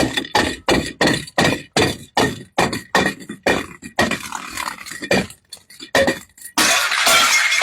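A rapid series of sharp impacts, about three a second, each ringing briefly, giving way near the end to about a second of dense, continuous noise.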